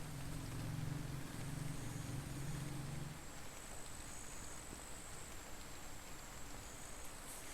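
Outdoor rural ambience in the rain: an even hiss of rain, a low hum for about the first three seconds, and a thin, high, steady tone throughout.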